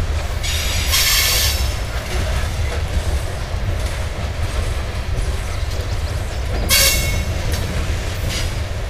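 Loaded covered hopper cars of a grain train rolling past: a steady low rumble of steel wheels on rail, with two short bursts of high-pitched wheel noise, about half a second in and again near seven seconds.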